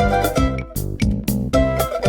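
An Android stock (AOSP) ringtone playing: a rhythmic melody of pitched notes, briefly thinning out about halfway through.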